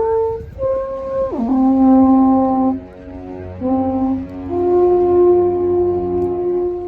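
Music: a slow tune of long held notes played on wind instruments, with several notes sounding together and the pitch stepping from note to note.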